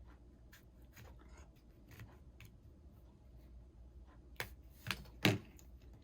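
Small clicks and taps from handling a phone and its repair tools up close, with three louder knocks near the end, the last the loudest.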